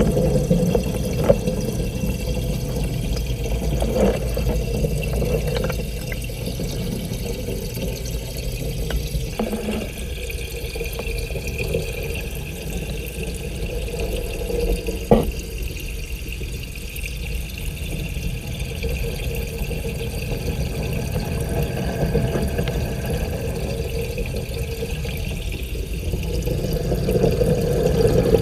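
Steady, muffled rushing and low hum of aquarium water, heard by a camera submerged in the tank. A few short knocks, the sharpest about fifteen seconds in.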